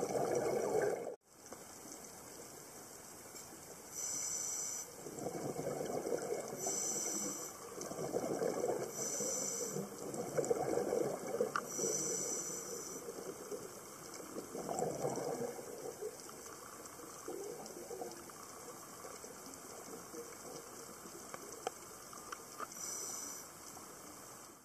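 A scuba diver's regulator breathing underwater: several breaths, each a short high hiss on the inhale followed by a longer burst of rushing, bubbling exhaust as the diver exhales.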